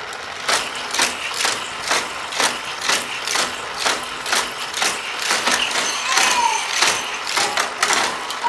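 Die-cast toy cars running round a motorized Hot Wheels loop track, a regular mechanical clacking about twice a second.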